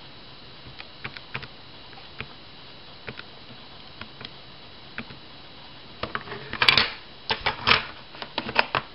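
Keys of a Casio fx-86DE Plus scientific calculator being pressed: scattered single clicks. From about six seconds in, a louder run of clattering knocks as the calculator is handled on a wooden desk.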